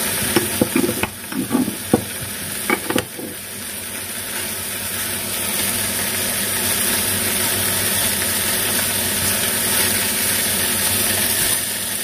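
Stuffed beef rolls sizzling steadily as they fry in oil in a pan, with a few clicks and knocks in the first three seconds.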